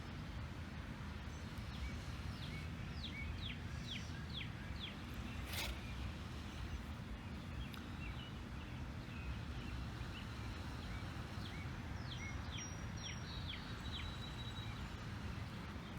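Outdoor ambience with a steady low rumble of noise, and a bird calling in two runs of short, quick falling notes. A single sharp click comes about five and a half seconds in.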